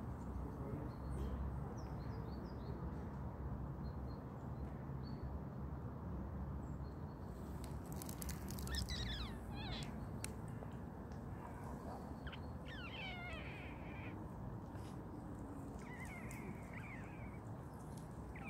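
Tabby cat meowing several times in the second half: short, gliding cries, over a low steady background rumble.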